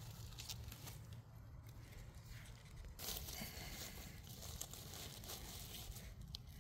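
Dry leaves and pine needles rustling and crackling as gloved hands dig through the leaf litter to pull up mushrooms, with scattered small snaps; the rustling grows louder about three seconds in.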